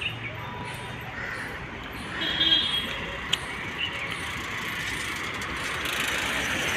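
Road traffic noise, a steady rushing hiss, with a brief high tone about two seconds in and a single sharp click a second later.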